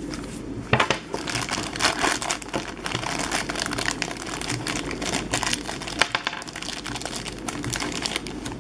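Thin clear plastic packaging bags crinkling and crackling steadily as hands handle them and work small figure parts out of them.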